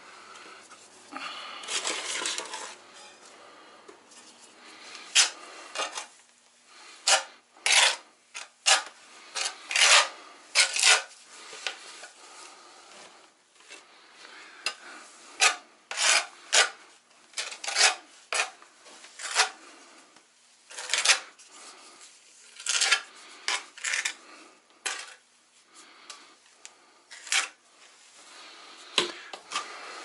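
Trowel scraping thinset mortar across the back of a porcelain tile: a rough rubbing scrape at first, then a long run of short, sharp scraping strokes, about one or two a second.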